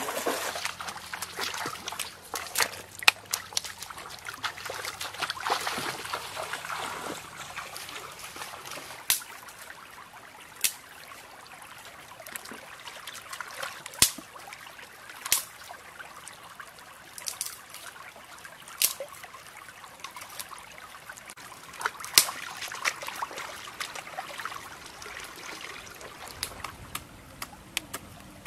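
Shallow, rocky stream water trickling and splashing: feet wading through it at first, then a plucked duck being washed by hand in the current. Sharp single knocks or clacks sound every few seconds.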